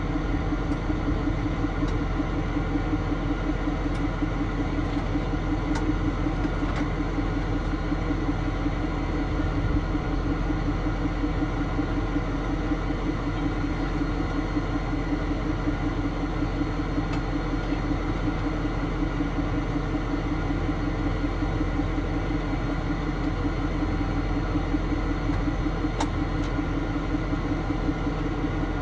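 Tow truck's engine idling steadily, a constant low drone with no change in speed, with a few faint ticks.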